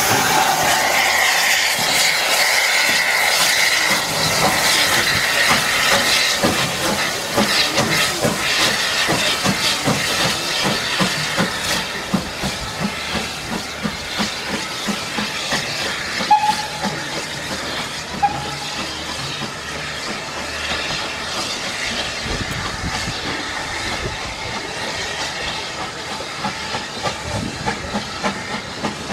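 Steam locomotive hissing steam and working away with a run of repeated exhaust beats, slowly growing fainter as it draws off down the line. Two brief high tones sound about sixteen and eighteen seconds in.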